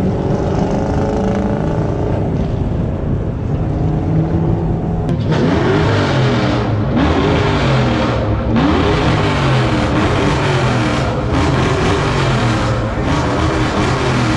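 Fox-body Ford Mustang 5.0 H.O. small-block V8 exhaust: a steady engine note while driving in traffic, then, after a cut, another fox-body's 5.0 revved several times, each rev sweeping sharply up in pitch, before holding at high revs.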